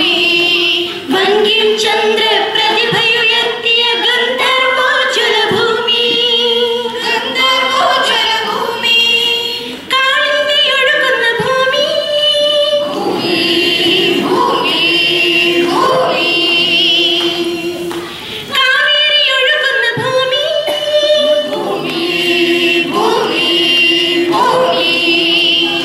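A mixed group of children and adults singing together from song sheets, unaccompanied, with a short break between phrases about two-thirds of the way through.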